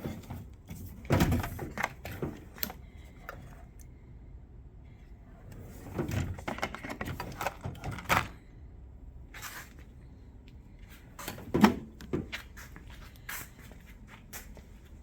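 Drawers of a Chicago Electric 286-lb welding cabinet being slid open and pushed shut, in three separate bouts of sliding and clunking knocks.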